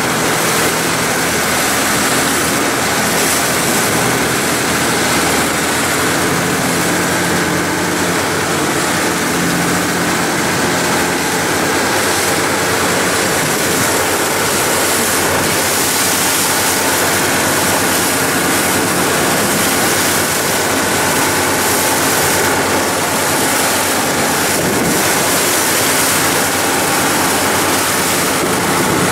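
Tour boat's engine running steadily at speed, with wind and rushing water over it as the boat moves through choppy sea.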